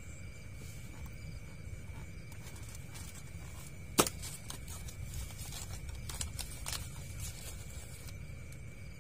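Fishing rods being handled in wooden rod rests: one sharp knock about four seconds in, then a run of lighter clicks and taps. Under it, a steady low rumble and a constant high whine.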